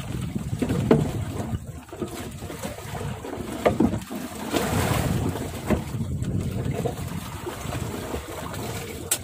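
Wind on the microphone and water against the hull of a small fishing boat at sea, a steady low rush with a few short sharp knocks scattered through it.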